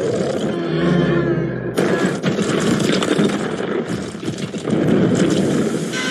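Monster-film soundtrack: dramatic music with held notes mixed with crashing, rumbling effects. A sudden loud crash comes about two seconds in.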